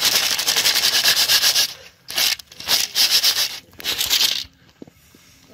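Lemongrass and leaves being stirred around in a large metal cooking pot of steaming water, a rough scraping rustle. One long stroke of about two seconds, then three shorter strokes.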